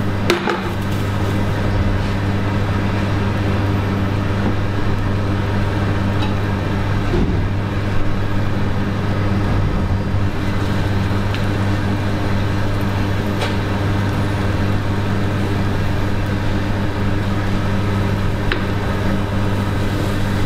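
Grated potato cakes frying gently in oil in a pan, an even sizzling hiss, over a steady low hum. A few light clicks from handling the pan and rings.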